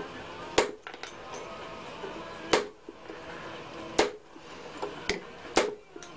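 Hammer blows on a cold chisel, held in pliers, chopping the slot teeth off a laminated steel toroidal transformer core. Four sharp metallic strikes about one and a half seconds apart, with a couple of lighter taps between them.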